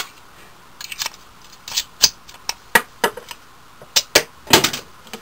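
About a dozen sharp, short plastic clicks and clacks, spread irregularly, from a hard plastic toy motorcycle being handled and its spring-loaded arrow launcher being fired.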